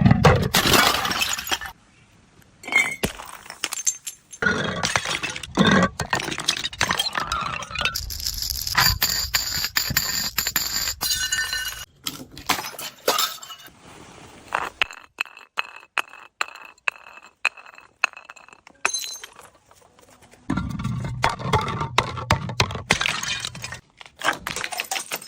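Glass bottles breaking and shattering again and again, with clinking of glass pieces and a clear ringing of glass between crashes.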